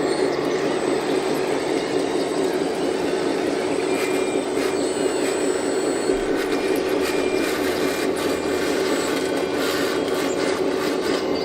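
Electric hydraulic pump and motors of a radio-controlled model excavator running, a steady mechanical whine.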